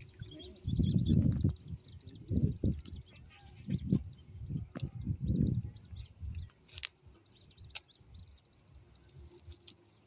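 Eurasian coot chicks peeping, a busy string of short, high, thin calls, the begging calls of chicks being fed. Repeated low muffled bumps on the microphone are louder in the first six seconds.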